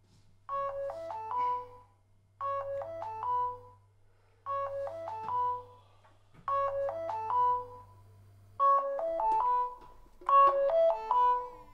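Mobile phone ringing with a melodic ringtone: a short tune of several quick notes, repeated six times about every two seconds, the last two rings louder.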